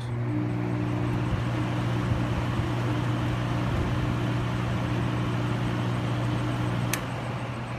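Lakewood Country Aire 20-inch two-speed window fan running on high: a steady motor hum over a rush of air from the blades. Near the end the speed knob clicks, and the fan's sound drops a little as it goes to low.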